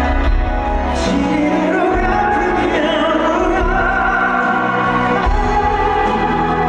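Live Korean pop ballad: a male vocal holds long, sliding notes over band accompaniment, with a deep bass that drops out for a few seconds in the middle.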